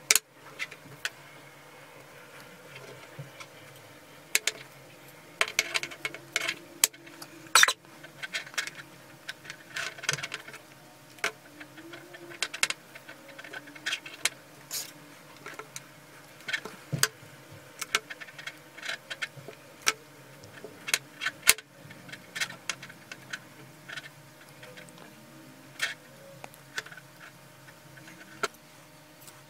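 Close handling sounds of gloved hands winding hemp fibre packing onto the end of a metal sprayer pump rod: irregular clicks, taps and rustling, with a few louder knocks.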